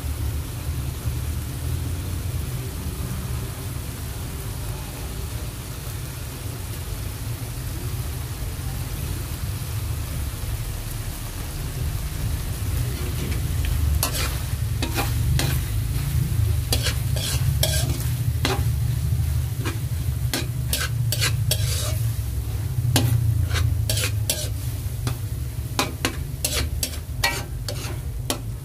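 Corned beef sizzling in a metal pan over a steady low rumble. From about halfway, a spatula scrapes and clicks against the pan as the meat is stirred.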